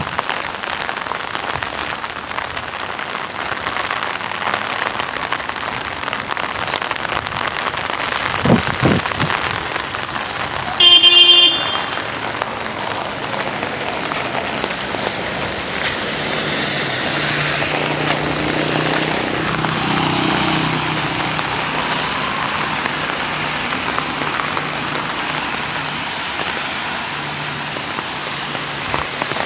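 Steady hiss of rain and traffic on wet roads, with a short, loud vehicle horn toot about a third of the way in. A vehicle engine hums steadily through the second half.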